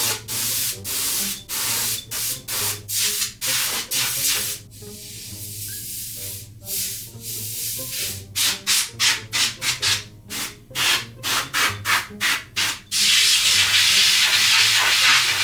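Can of compressed air sprayed in many short hissing bursts, about two to three a second, with a few seconds' pause in the middle, blowing dust out of a computer. Near the end it gives one long continuous blast.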